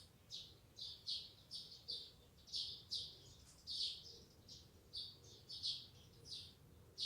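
Faint bird chirping: short, high chirps repeated about twice a second.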